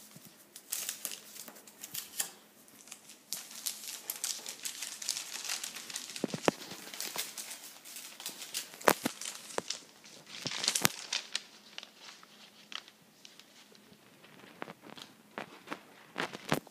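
Newspaper rustling and crinkling as it is folded and handled into a paper hat, with many sharp crackles; the loudest come about nine and eleven seconds in.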